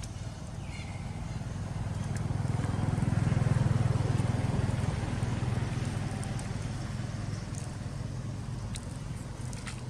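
A passing motor vehicle's engine: a low hum that swells to its loudest about three and a half seconds in, then fades away.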